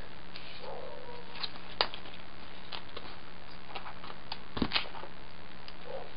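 Hook-side Velcro strip being handled and cut to length with a knife: a few sharp clicks and light rustling over a steady low hum.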